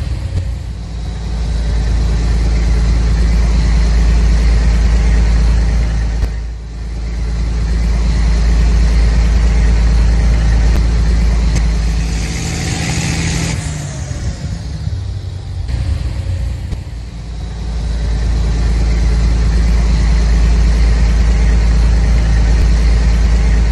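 Tractor engine sound running steadily with a deep, even hum. It dips briefly twice, and around the middle there is a short hiss followed by a faint falling whine.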